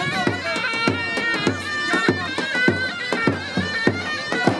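Turkish folk pipe and drum, a zurna and davul: the loud reedy pipe plays an ornamented melody over a steady, regular bass-drum beat. This is music for a hand-in-hand line dance.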